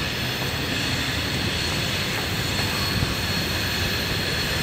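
Distant CSX freight train approaching, heard as a steady low rumble.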